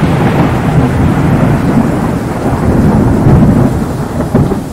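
Thunderstorm recording: low rolling thunder over steady rain, swelling again about three seconds in and starting to fade near the end.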